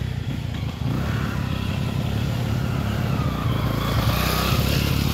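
An engine running steadily, a low pulsing rumble, with fainter wavering sounds above it.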